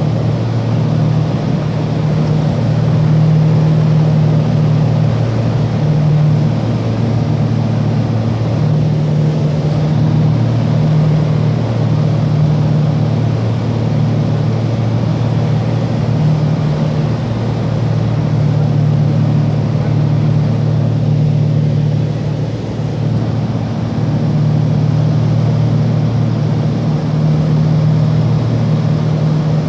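Small aircraft in flight, heard from inside the cabin: a loud, steady low engine drone over an even rush of noise, with the hum slowly swelling and fading every few seconds.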